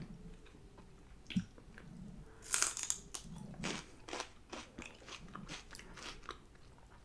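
Close-miked eating: bites and crunchy chewing of food from a Wingstop order, a string of crisp crunches with soft mouth sounds between them.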